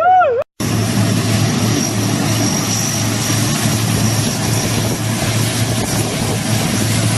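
A bus's multi-tone telolet horn ends a warbling tune in the first half second. After a brief cut comes a steady vehicle engine drone with road or wind noise and a constant low hum.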